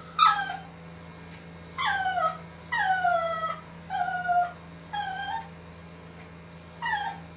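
Shih Tzu puppy whimpering: a string of short cries, about one a second, each falling in pitch, the sound of its distress at being handled for grooming.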